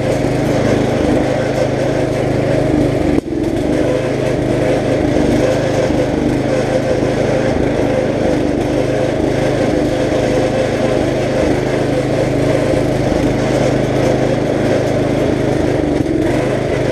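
Riding lawn mower engine running steadily at speed, with a brief sudden drop about three seconds in.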